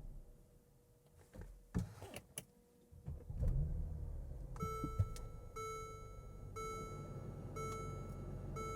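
2014 Mercedes-Benz ML350 engine stopping, then a few clicks, then the starter cranking and the engine catching and idling, started through an aftermarket push-to-start button in the ignition slot. From about halfway on, a dashboard warning chime beeps about once a second.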